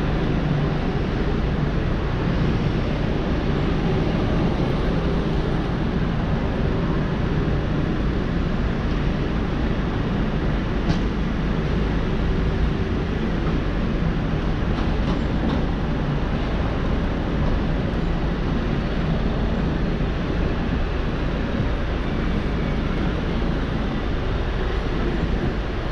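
Aprilia SXR 50 scooter's 50 cc engine running with a steady low rumble, mixed with road and traffic noise. One sharp click about eleven seconds in.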